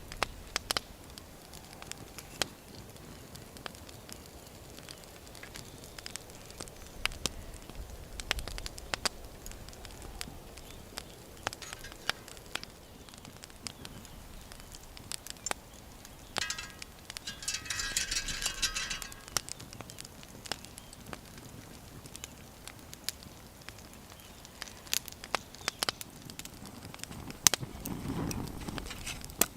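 Wood campfire crackling, with scattered sharp pops and snaps. About midway there is a louder hissing noise lasting roughly three seconds.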